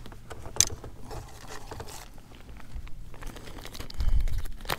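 Plastic Berkley Gulp! bait pouch crinkling and rustling as it is handled, with scattered sharp clicks and a low bump about four seconds in.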